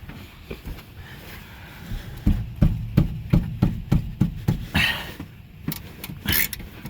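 Socket ratchet wrench working a 15 mm rear brake caliper-bracket bolt loose: a run of even knocks about three a second, then quicker sharp ratchet clicks near the end.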